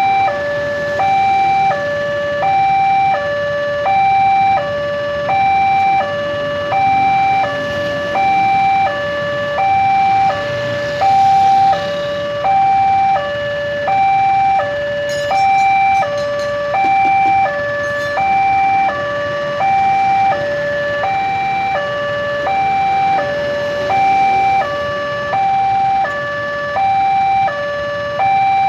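Railway level-crossing alarm from the loudspeaker on the crossing signal post, sounding its electronic two-tone warning: a higher note and a lower note alternating steadily, about one high-low pair a second. The alarm means the crossing is closed for an approaching train.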